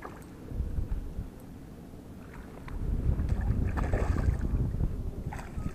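Shallow water splashing as a small released flathead thrashes at the surface and kicks away, a few short splashes about two and four seconds in. Wind rumbles on the microphone underneath.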